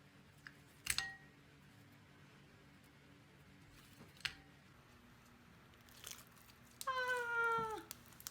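A cat meows once near the end, a drawn-out call that slides down in pitch. A few sharp clicks come earlier.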